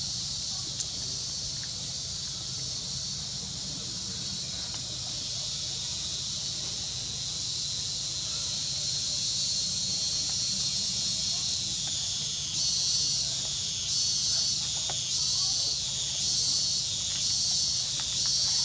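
A chorus of insects making a steady, high-pitched buzzing hiss. About twelve seconds in, a second pulsing insect song joins, swelling roughly once a second.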